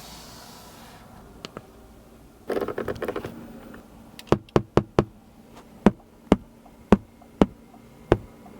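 A short rattle of rapid clicks, then a string of sharp, separate clicks, one to two a second.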